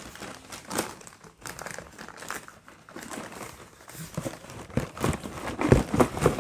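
Packaging crinkling and rustling as it is handled and unwrapped, in irregular crackles that grow louder and busier near the end.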